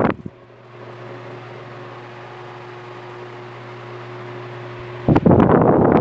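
Arno electric fan with a burnt-out motor, running again after a makeshift repair: a steady motor hum with rushing air. Loud gusts of its airflow hitting the microphone cut out just after the start and come back about five seconds in.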